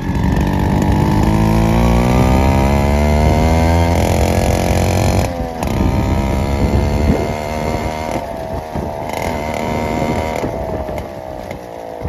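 Yamaha RX motorcycle's two-stroke single-cylinder engine running hard, heard close to its exhaust silencer. Its pitch climbs as the bike accelerates, breaking off about four seconds in and again just after five seconds as it changes up a gear, then it runs steadier with smaller rises.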